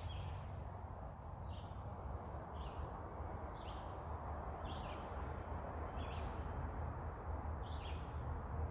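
A bird calling a short, slightly falling note over and over, about once a second, over a low steady rumble.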